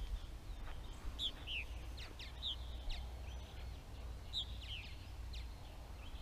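Purple martins calling: scattered short chirps, several in quick pairs, over a steady low background rumble.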